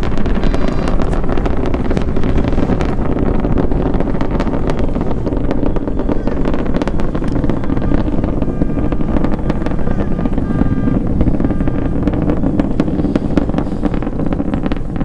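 Falcon Heavy rocket's 27 Merlin engines heard from the ground during ascent: a steady, deep rumble laced with dense crackling.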